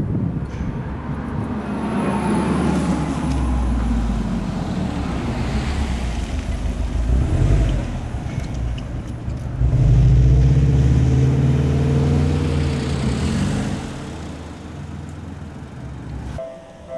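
Road vehicles driving past, engines and tyres rumbling, with two louder passes in the middle; the sound breaks off shortly before the end.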